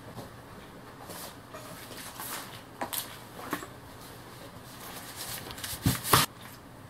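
A cardboard box holding a bench grinder is set down on a workbench with two heavy thumps close together about six seconds in. Before that come scattered light knocks and rustles.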